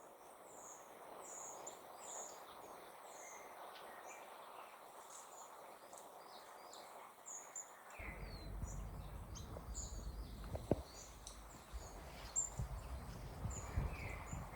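Small birds chirping and singing in short, repeated calls over a faint outdoor hiss. From about eight seconds in, a low rumble and a few light knocks join underneath.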